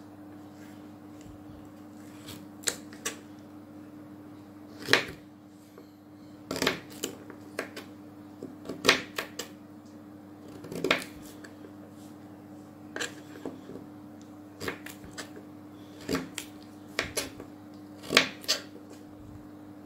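Kitchen knife cutting peeled broccoli stems on a plastic cutting board: irregular sharp knocks of the blade meeting the board, some single and some in quick runs of a few, over a steady low hum.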